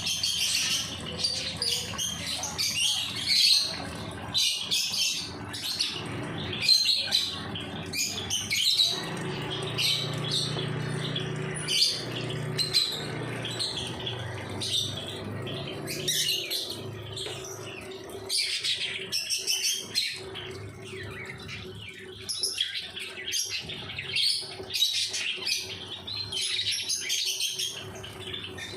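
Several pet birds chirping with many short, high calls in quick succession, overlapping throughout.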